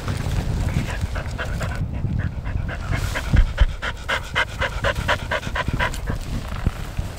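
Finnish Lapphund panting rapidly close to the microphone, about six quick breaths a second, over a low rumble.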